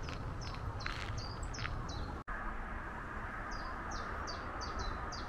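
Small songbirds chirping, with a quick run of repeated short high notes in the second half, over a steady low outdoor background noise. The sound drops out for an instant about two seconds in.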